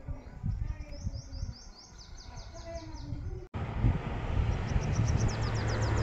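A small bird chirping a quick run of short falling notes, about five a second. After a sudden cut, louder wind-like noise and a steady low vehicle engine rumble, with another fast run of chirps near the end.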